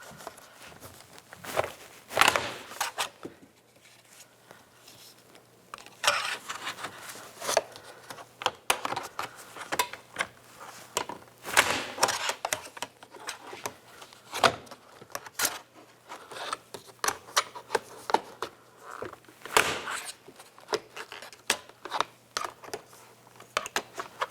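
Plastic trim tools prying a vehicle's door panel off its push-pin clips: irregular scraping and creaking of plastic with scattered sharp snaps as the clips pop loose.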